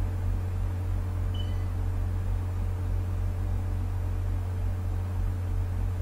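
Steady low electrical hum with a faint higher tone and hiss, unchanging throughout: background noise on the recording.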